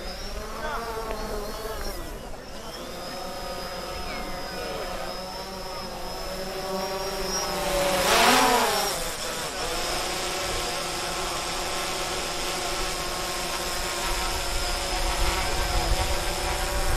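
Propeller buzz of a small motorised aircraft flying overhead, with a steady high whine. The pitch drifts up and down, and it swells loudest about eight seconds in as it passes close, bending up then down in pitch.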